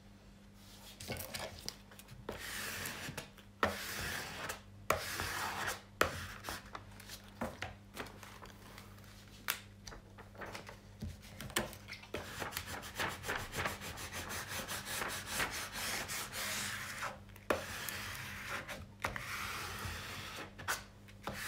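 A diamond-painting canvas and its plastic cover film being handled: rustling, rubbing and scraping, broken by sharp crinkles and small knocks, with a rapid crackle partway through.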